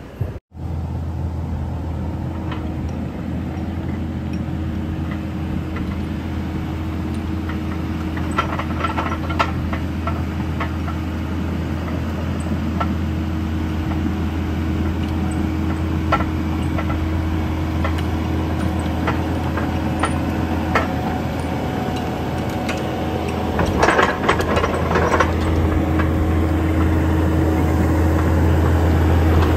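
Kubota compact track loader's diesel engine running steadily, growing louder toward the end as the machine comes close. Sharp metal clanks and rattles come now and then, with a dense cluster about 24 seconds in.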